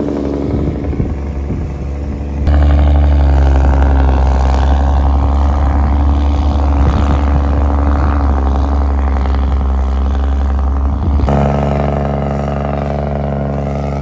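Claas tractor engine pulling hard under load, drawing a multi-furrow reversible plough through the soil: a steady engine drone. It gets louder about two and a half seconds in and drops back near eleven seconds.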